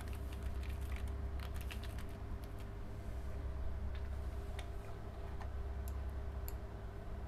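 Computer keyboard being typed on: a quick run of key clicks for about three seconds, then a few scattered clicks, over a steady low hum.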